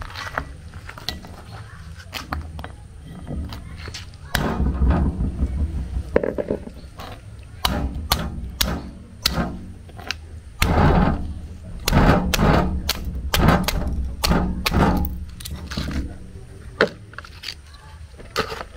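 A hand-held stone pounding snails on a flat stone slab, a run of sharp knocks as the shells crack, several a second, thickest through the middle stretch and thinning out near the end.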